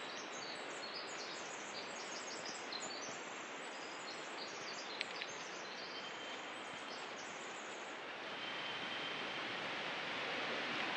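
Forest ambience: a steady rush of distant flowing water, with small birds chirping high over it. The rushing grows louder about eight seconds in.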